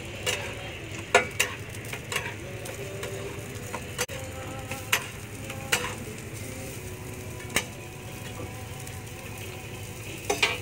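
Burger patties and buns sizzling on a flat steel griddle, with sharp, irregular clinks of a metal spatula and tongs against the plate every second or so.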